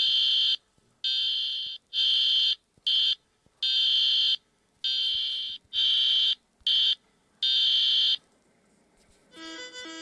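Harsh, high electronic alarm tone in the style of an Emergency Alert System alert, blaring in nine on-off bursts of uneven length and stopping about eight seconds in. Music fades in near the end.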